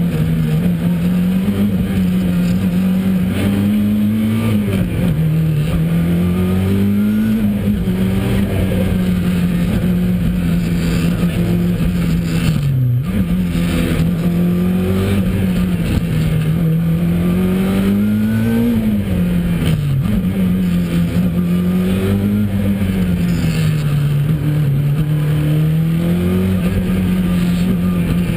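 Ford RS200 Evo's turbocharged four-cylinder engine at rally pace, heard from inside the cabin. It runs loud throughout, its pitch climbing and falling again and again, with several sudden drops as the car shifts gear and lifts for corners.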